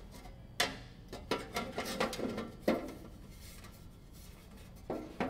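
Sheet-metal battery box being handled against a riding mower's rear frame: a few light metal knocks and clicks with some rubbing, then two more knocks near the end.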